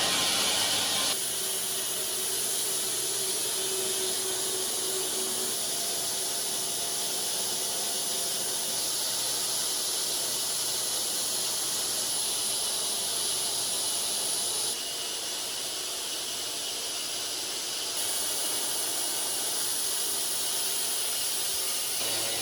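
Custom-built bandsaw sawmill cutting a walnut log: a steady high hiss of the blade in the wood over a faint running hum, shifting slightly in level a few times.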